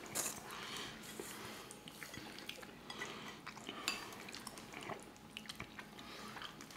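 Metal forks clinking and scraping on plates and bowls while eating: quiet, scattered small clicks.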